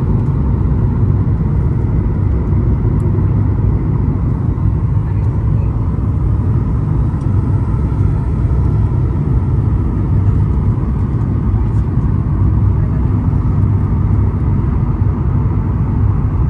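Steady low rumble of engine and airflow noise inside the cabin of a Boeing 737 MAX 9 with CFM LEAP-1B engines, on approach to landing.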